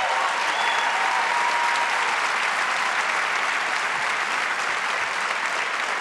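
A large theatre audience of about 2,000 applauding steadily.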